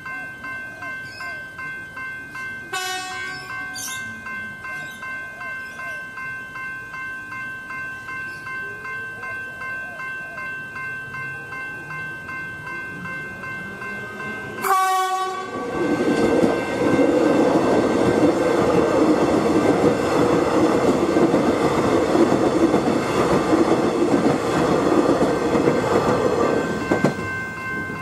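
Level crossing's General Signals E-Bells ringing steadily, about twice a second, as a train approaches and passes. A train horn sounds briefly about three seconds in and gives a loud short blast about halfway through, then the train runs over the crossing for about eleven seconds with its wheels clattering over the rails, louder than the bells.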